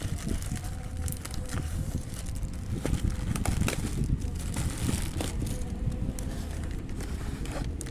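Phone box and packaging being handled and opened: scattered clicks, taps and crinkles over a steady low background rumble.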